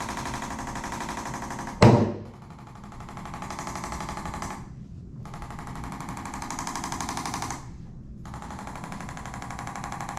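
Handheld chiropractic adjusting instrument firing rapid, evenly spaced percussive taps in runs of two to three seconds with short pauses between them, delivering an instrument adjustment to the neck. A single loud knock stands out about two seconds in.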